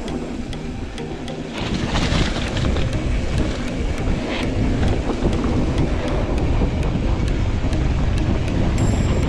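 Wind rushing over the camera microphone with a low rumble as a mountain bike rides along a dirt trail. It comes in suddenly about a second and a half in, after a short tail of background music.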